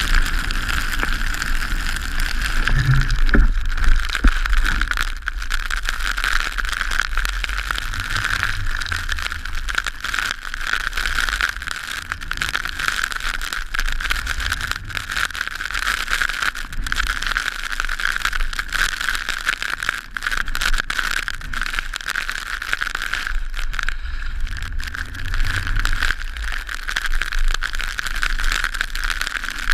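Wind noise and the hiss of skis sliding over fresh snow, heard from a camera on a pole carried downhill: a steady rushing noise with gusts of low rumble and a few light knocks.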